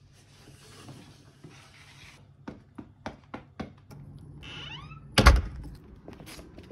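Leaving the house: a light rustle, then a quick run of sharp clicks from keys and the lock of a wooden front door, a brief rising squeak, and one loud heavy thunk as the door shuts.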